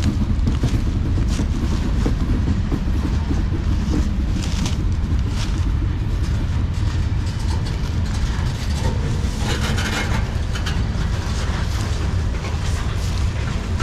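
Freight cars rolling past close by: a steady, heavy rumble of steel wheels on the rails, with scattered clicks and clanks. About ten seconds in there is a brief burst of higher, harsher noise.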